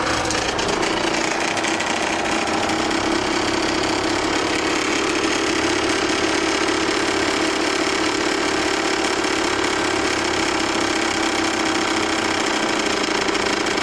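Stuart Meteor model steam engine running at high speed on steam, a rapid, even mechanical clatter that holds steady.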